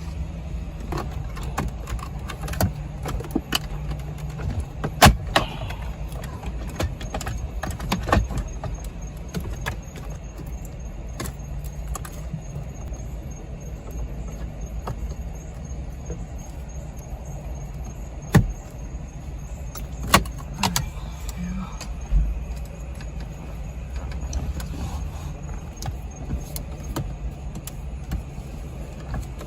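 Scattered clicks and knocks of plastic dashboard trim and parts being handled and fitted back into a Cadillac XTS dash, the sharpest about five, eight, eighteen and twenty seconds in, over a steady low hum.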